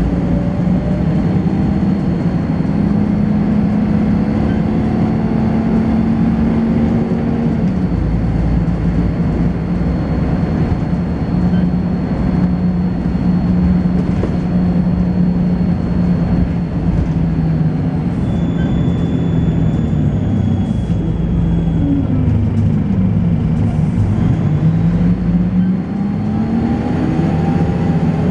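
Volvo B10BLE bus's horizontal six-cylinder diesel engine thrashing on the move through its ZF automatic gearbox, with a strange thin high-pitched whine held steady above the engine. The engine note drops about a third of the way in, then falls and climbs again near the end.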